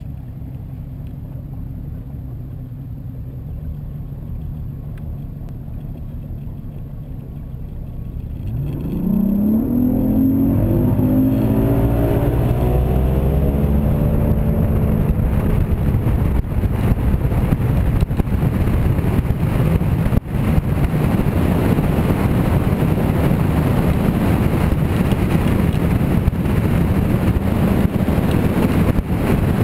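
Bass boat's outboard motor running low and steady, then about eight seconds in opening up, its pitch climbing for several seconds before levelling off into a loud, steady run at speed. Rushing wind and water noise on the microphone come in along with it.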